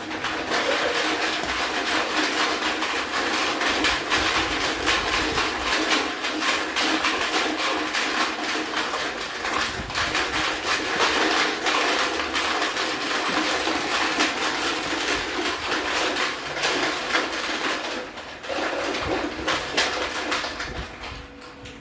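Small plastic balls rattling continuously inside plastic containers strapped at the waist, shaken by hip-wiggling in the Swinging Ball game. The rattle breaks off briefly near the end and then dies away.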